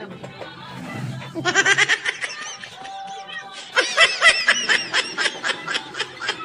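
Laughter in two bouts of rapid, pitched bursts. The first starts about a second and a half in, the second just before the four-second mark and is the louder.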